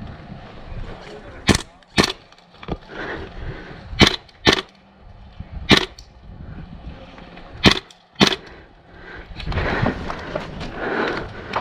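Airsoft gun firing single shots, sharp cracks mostly in pairs about half a second apart, seven in all, with short pauses between pairs.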